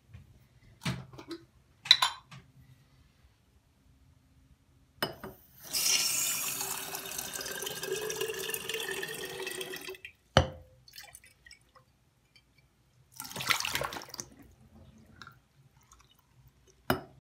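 Bathroom sink faucet running water into a glass jar for about four seconds, with a faint tone rising in pitch as the jar fills. This is followed by a sharp knock, a short second splash of water, and another knock near the end.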